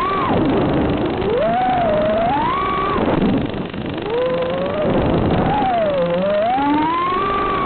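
FPV quadcopter's brushless motors and propellers whining, the pitch sweeping up and down again and again as the throttle is worked.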